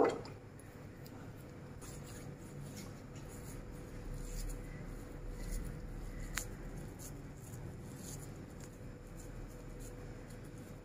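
Faint handling sounds of oiled hands scooping and pressing a mashed chicken-and-potato kabab mixture in a glass bowl: soft scattered taps and rustles, with one sharper click a little past halfway.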